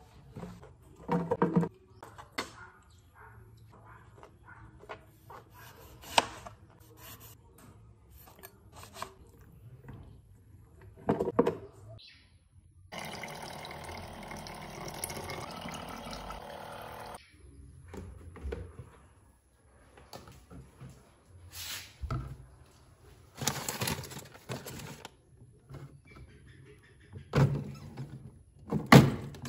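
Water running from a dispenser spout into a plastic jar for about four seconds, a steady rushing splash. Before and after it come scattered knocks and clunks of handling: cucumber slices and a knife on a cutting board, then the jar set down on a fridge shelf near the end.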